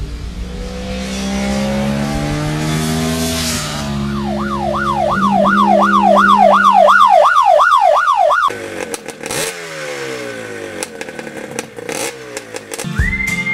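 Motorcycle engine accelerating, its pitch climbing and dropping in steps as it shifts up through the gears. About four seconds in, a loud siren-like tone takes over, warbling up and down about three times a second. It is followed by falling engine notes and sharp clicks.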